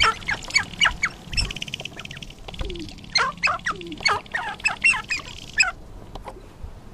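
Male sharp-tailed grouse displaying on a lek: a rapid run of sharp, falling squawking calls over a fast rattling buzz, with a few short low coos mixed in. The rattle stops about six seconds in.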